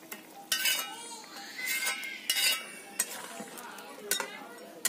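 A spatula scraping and clinking against an iron kadai while stirring and turning fish in a simmering curry: about half a dozen scrapes and knocks, some with a brief metallic ring.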